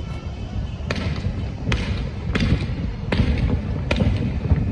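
Fireworks going off: about five sharp bangs, evenly spaced under a second apart, over a steady low rumble.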